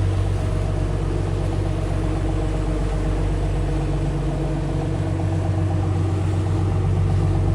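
A motor engine running steadily at an even speed, a constant low hum with no revving.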